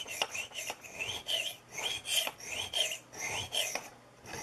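Steel blade of a 440 stainless skinning knife scraped across the grooved surface of a natural serpentine sharpening stone in repeated hard strokes, about two a second, with a short pause near the end. The strokes are heavy-pressure work on a dull edge, taking a lot of metal off.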